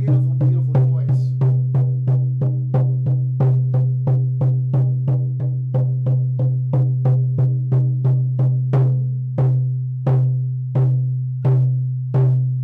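A 15-inch elk hide hand drum beaten in a steady beat of about three strokes a second, its deep low tone ringing on between strokes. Over the last few seconds the beat slows to a stroke every half second or more.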